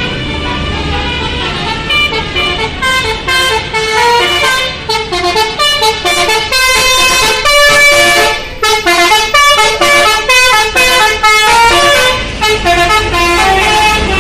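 Multi-tone 'telolet' musical air horn on a Basuri bus playing a fast tune of short notes at many pitches, starting about two seconds in, over the bus's engine running.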